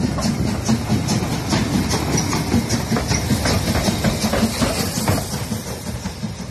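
Harz narrow-gauge 99.72-class steam tank locomotive running past close by, its exhaust chuffing in a regular beat over the rumble of its wheels on the rails, easing off a little near the end.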